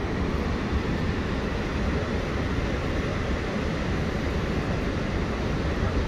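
Horseshoe Falls, water pouring over the brink close by: a constant rushing noise with a deep rumble underneath.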